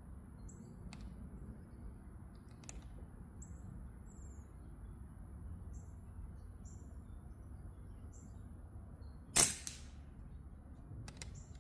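A single sharp airgun shot about nine seconds in, with a short decay. A few faint clicks come before and after it.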